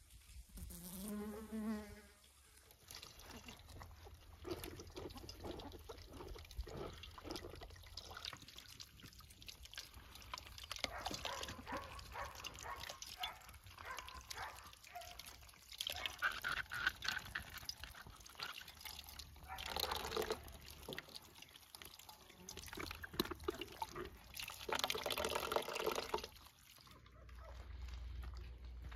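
A honeybee buzzes briefly at the start. Then water splashes and sloshes in irregular bursts, loudest about halfway through, around twenty seconds in and again near the end.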